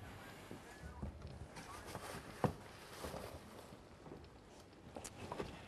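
Small knocks and rustles of household belongings being handled and moved, with one sharper knock about two and a half seconds in.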